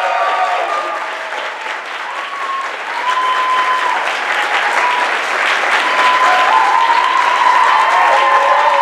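Audience applauding. The clapping dips a little about two seconds in, then builds again, with a few held high tones riding over it.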